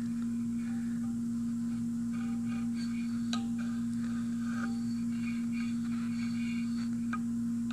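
A steady low hum with faint scratchy scraping and a couple of light clicks as a metal block coated in layout fluid is slid against a dial height gauge's scriber to scribe short layout marks.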